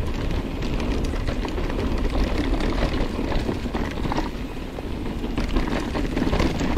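Mountain bike rolling fast down a dirt trail: wind rumbling on the microphone and tyres on dirt, with constant small rattles and knocks from the bike over bumps.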